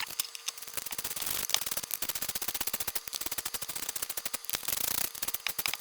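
Ratchet wrench clicking rapidly as mounting nuts are tightened, a fast, uneven run of sharp clicks.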